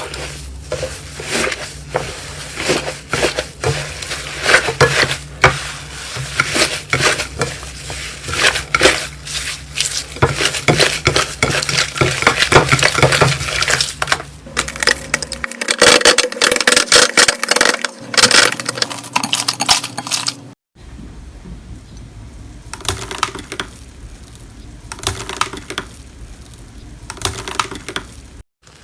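Slime being squeezed, stretched and poked by hand close to the microphone: a dense run of sticky clicks, crackles and pops. The sound briefly drops out about two-thirds of the way through and again near the end.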